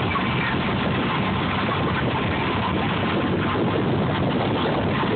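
Motorboat running at speed while towing a tube: a steady rush of engine noise mixed with water from the wake, with a faint steady whine.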